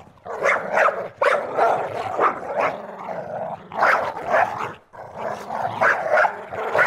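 A dog barking over and over in quick runs, about two or three barks a second, with a short break about five seconds in.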